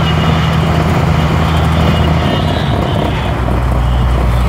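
Bus engine running steadily while driving, heard from inside the cabin, with road noise; about three seconds in its note drops to a lower pitch.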